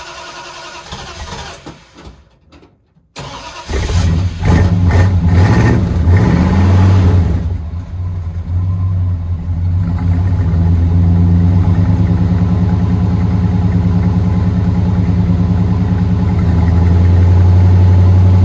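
1970 Dodge Charger 500 engine on a cold start: after a brief lull it fires about three seconds in, revs up and down a few times, then settles into a steady, loud, low idle.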